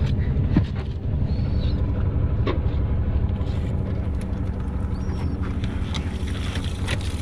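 Steady low hum of a boat's engine idling, with a few light knocks on the deck.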